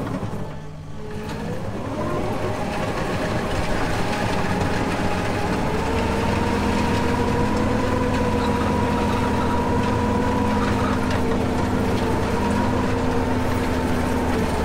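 Kubota SVL75 compact track loader's four-cylinder diesel engine, heard from inside the cab, revving up over the first couple of seconds and then running steadily under load while grading with a dozer blade. A steady whine sits over the engine.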